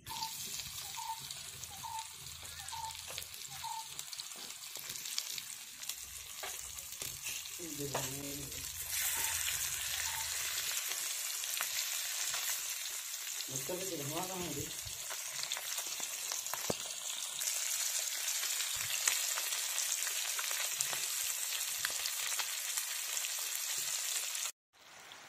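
Small masala-coated whole fish frying in hot oil in a pan: a steady sizzle that gets louder about nine seconds in. Short high chirps come about once a second in the first four seconds.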